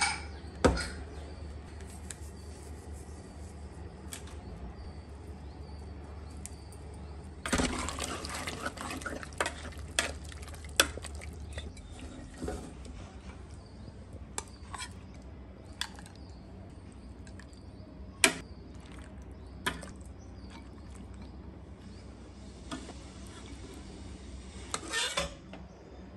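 Metal spoon clinking and scraping against an aluminium pressure cooker while thick mutton curry is scooped out. There is a busy stretch of scraping and stirring about a third of the way in, then single sharp clinks scattered through the rest.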